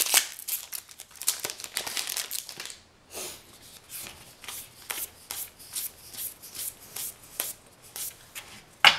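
Magic: The Gathering trading cards from a freshly opened booster pack being handled and slid one over another: a run of dry papery flicks and swishes, dense for about the first three seconds, then coming about twice a second.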